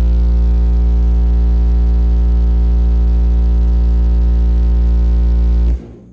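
Toro Tech Force 8 cast-basket car subwoofer playing a loud, steady, deep, buzzy bass tone as an SPL burp at its rated power of about 820 watts, reaching 147.38 dB. The tone cuts off suddenly near the end.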